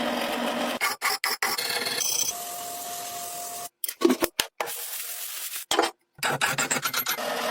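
Rubbing and scraping on metal parts, as in hand filing or sanding off rust and paint, in several short clips broken by abrupt cuts. A steady tone runs for about a second in the middle.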